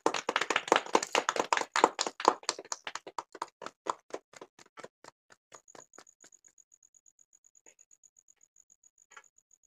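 A small group clapping hands in a steady rhythm. The clapping thins out and stops about six seconds in.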